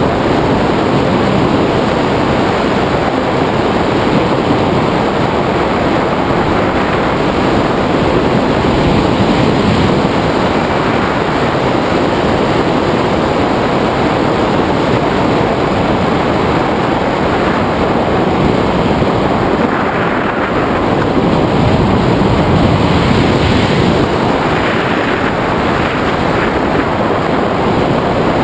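Steady rush of wind buffeting the microphone of a camera mounted on a tandem hang glider in flight.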